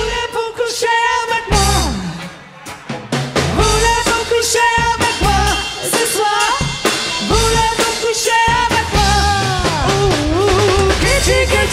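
Live rock band playing with a lead vocal over drum kit, electric guitar and bass.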